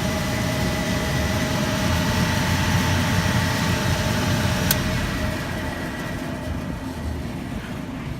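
Make-up air unit running with a steady rumble and a thin whine. About halfway through there is a sharp click, after which the whine stops and the running sound slowly falls away.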